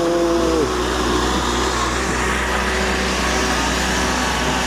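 A vehicle engine running steadily with a low rumble, over a constant wash of street noise. A short pitched call, like a voice or horn, sounds at the very start.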